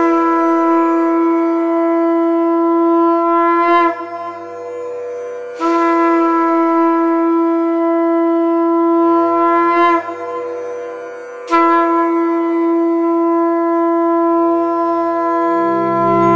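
Conch shell (shankha) blown in three long held notes of about four seconds each, with short pauses between them; a faint low drone sounds in the pauses.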